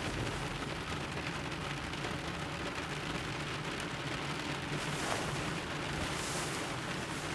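Steady rain, heard from inside a car.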